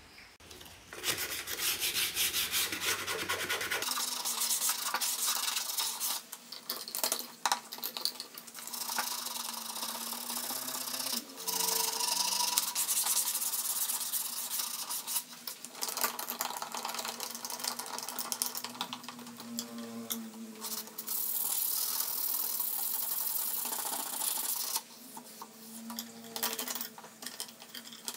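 Hand sanding of a wooden stick with sandpaper, rapid back-and-forth rubbing strokes in long runs with a few short breaks.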